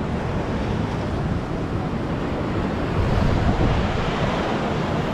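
Surf washing onto a beach, with wind buffeting the microphone in gusts.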